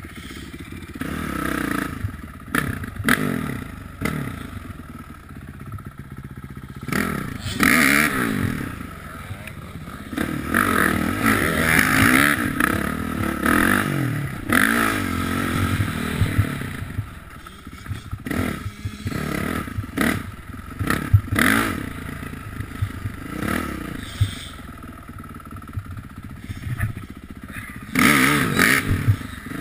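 Honda CRF450R dirt bike's single-cylinder four-stroke engine revving up and down over and over as it is ridden along a rough dirt trail. Short clattering knocks come from the bike over bumps, and the loudest pulls are near the middle and near the end.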